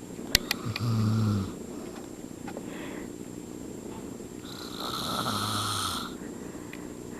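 A man snoring in his sleep: two snores about four seconds apart, the first short and loudest, the second longer.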